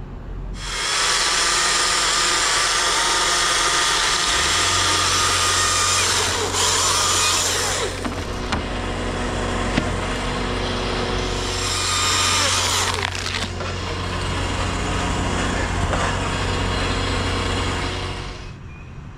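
Chainsaw running at high revs while cutting wood for about seventeen seconds, its pitch dipping twice as it bogs under load. A steady low engine hum runs underneath from about four seconds in.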